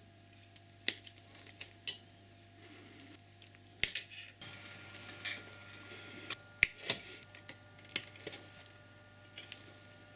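Small metal tools and parts being handled on a workbench: scattered light clicks and clinks, the loudest a sharp double click about four seconds in, over a faint steady low hum.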